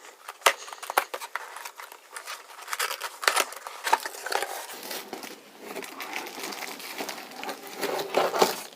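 Cardboard box and packaging being handled and opened, with crinkling, rustling and irregular sharp clicks and scrapes; the rustling thickens about halfway through.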